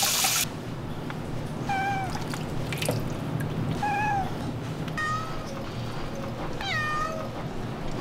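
A Ragdoll cat meowing about four times in short, bending calls. A shower spray running at the start cuts off about half a second in.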